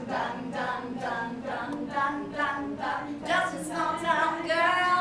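A voice singing unaccompanied, with long, drawn-out, gliding notes in the last two seconds.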